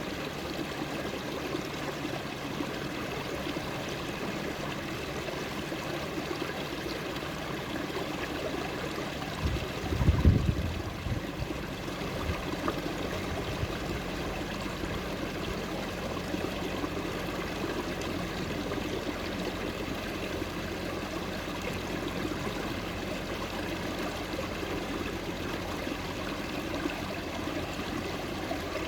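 Running water of a small forest stream, flowing and trickling steadily. A brief low rumble comes about ten seconds in.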